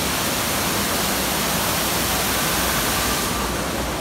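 Steady rushing of falling water from a waterfall: a loud, even hiss with no break.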